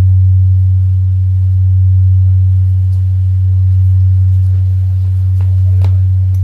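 Large bronze Korean temple bell humming on after being struck: a deep steady tone that swells and fades slowly about every two seconds, while a higher overtone dies away in the first second or so.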